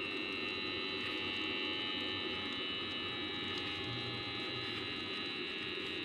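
Small electric motor and fan of a homemade model vacuum cleaner running steadily, a high whine over an even hiss, as it sucks up bits of paper.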